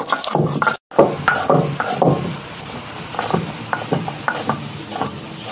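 Stone grinding on stone: a black stone roller (nora) is worked back and forth over a flat grinding slab (sil), crushing mustard seeds and green chillies into paste in quick, repeated scraping strokes. The sound drops out briefly just under a second in.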